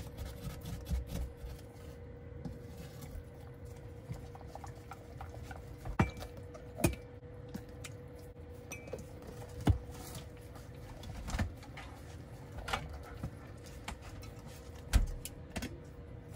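Metal spoon scooping malted-drink powder from a tin and clinking against the tin and a ceramic mug, in scattered taps and knocks, a few of them sharper. A steady hum runs underneath.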